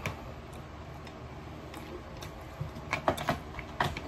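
Small sharp clicks and cracks of crab shell being picked apart by hand over a plate, a quick cluster of them about three seconds in and another near the end.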